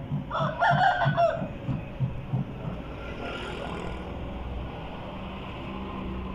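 Aseel chickens calling: a loud, short, pitched rooster call about half a second in, over a run of low clucks about three a second that stops about two and a half seconds in.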